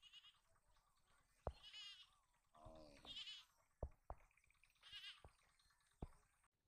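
Faint livestock bleating: four or five short, wavering calls, with several sharp taps between them.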